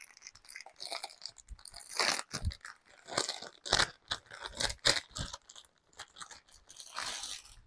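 Clear plastic packaging crinkling and rustling as a saree is unwrapped from its bag by hand, in irregular crackles, loudest around the middle and near the end.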